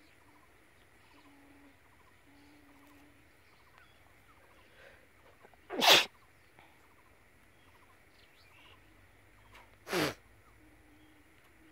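Two short, sharp bursts of breath from a person, like sneezes, about four seconds apart; the first is the louder.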